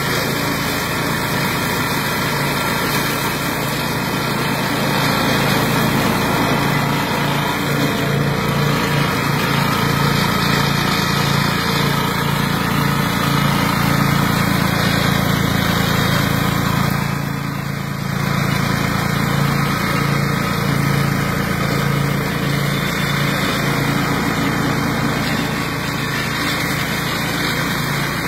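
Flail mower running steadily with its engine and chopping shaft, with a brief dip in level about two-thirds of the way through.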